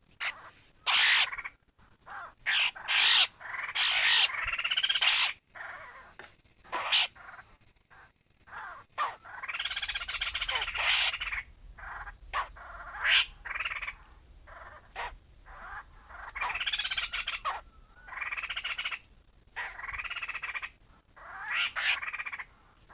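Laughingthrush (khướu) calling: a string of harsh, chattering calls in irregular bursts, some brief and a few over a second long, the kind of recording played on a speaker to lure the birds.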